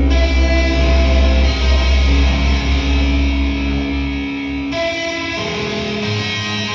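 Rock music with electric guitar playing sustained notes over a heavy bass, which drops away about four seconds in, leaving the guitar notes.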